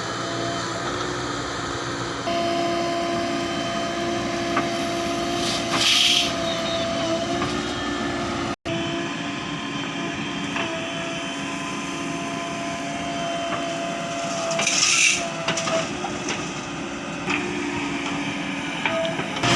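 JCB 3DX backhoe loader working, its diesel engine running with a steady whine that wavers slightly, and two short hisses, about six seconds in and again near fifteen seconds.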